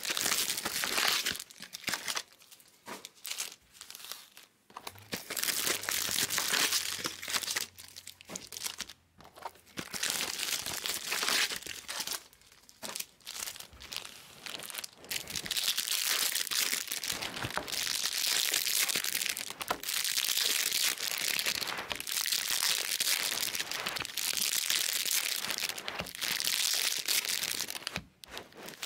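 Foil-wrapped Bowman Chrome trading-card packs crinkling and rustling as they are handled, in repeated bursts with short pauses.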